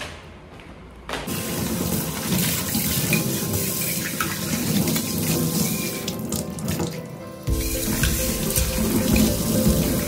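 A tap running into a sink while a steel dish is rinsed and rubbed by hand under the stream; the water comes on about a second in.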